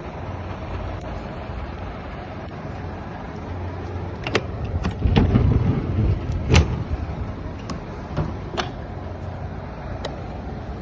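Mitsubishi Fuso Canter truck idling steadily, with a low hum. About halfway through come several sharp clicks and knocks, the loudest a little past the middle.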